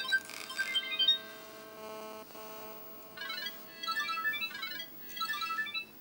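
A mobile phone playing an electronic ringtone melody through its small speaker: quick runs of short, bright beeping notes, a held tone in the middle, then two more rapid runs of notes near the end.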